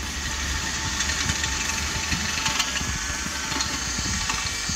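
Cordless drill running steadily, its bit drilling out a rivet that holds the front clamp on a metal snowmobile clutch guard.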